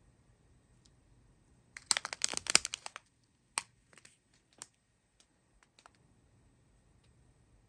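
Small plastic bags of diamond painting drills being handled: a burst of crinkling and rattling clicks about two seconds in, then a few single clicks.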